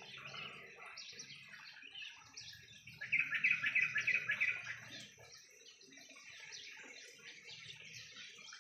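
Several small caged birds chirping together in an aviary, with a louder run of rapid repeated notes about three seconds in that lasts under two seconds.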